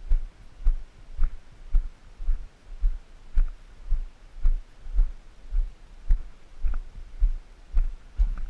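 Footsteps of someone walking on a gravel-and-rock breakwater: steady low thumps about twice a second, each with a faint crunch, picked up through a body-worn camera.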